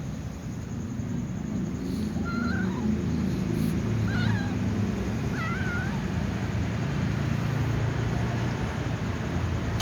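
A cat meowing three times, short wavering calls a second or two apart, over a steady low rumble.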